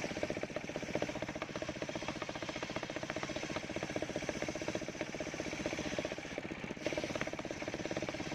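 Engine powering a portable circular sawmill, running steadily with a rapid, even beat.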